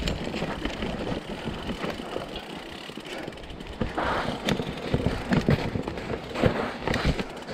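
Mountain bike riding down a forest dirt trail: tyres rolling over soil and roots with frequent knocks and rattles from the bike, busier and louder from about four seconds in.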